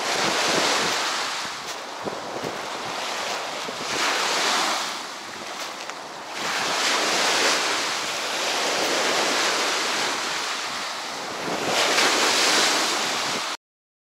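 Small waves breaking and washing up onto a pebbly beach, the wash swelling and ebbing every few seconds. The sound cuts off abruptly near the end.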